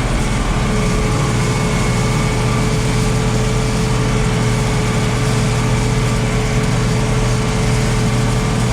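Farm tractor engine running steadily at working speed, a constant hum with a steady whine above it.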